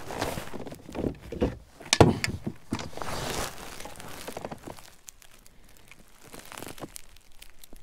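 A freshly netted bass flopping in the landing net as it is handled: irregular knocks, thuds and rustling, with a sharp knock about two seconds in. The noise is busiest in the first few seconds and thins to faint scattered clicks after.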